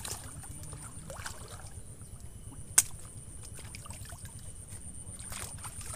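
Fishing gear handled at the water's edge, a keepnet set out and a rod picked up: faint rustling and handling noises, with one sharp click about halfway through. A steady high-pitched whine runs underneath.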